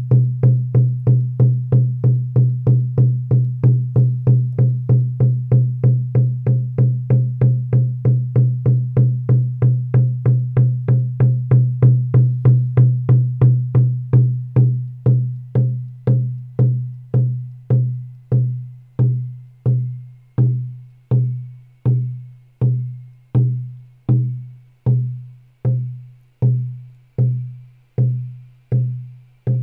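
Shaman's frame drum beaten in a steady, quick journey rhythm of about three strokes a second, each stroke a deep ringing tone. About fourteen seconds in, the beat slows to roughly one stroke every three quarters of a second, letting each stroke ring out.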